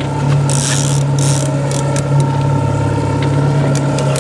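Baitcasting reel being cranked steadily, its gears whirring and clicking as a hooked fish is reeled in to the boat, over the steady low drone of the boat's motor.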